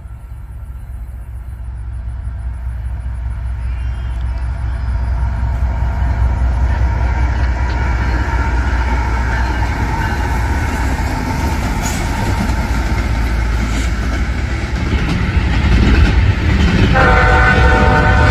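Diesel locomotive-hauled train approaching, its low engine rumble and rolling noise growing louder over the first several seconds. Near the end, the locomotive's air horn sounds a loud chord of several tones.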